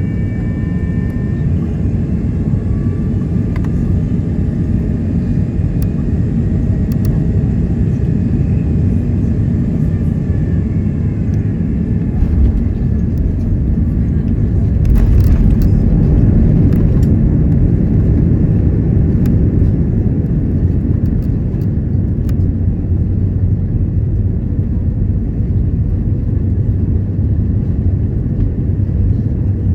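Steady low rumble inside the cabin of an Airbus A330-900neo during landing, swelling for a couple of seconds about halfway through. Faint high tones slowly fall away near the start.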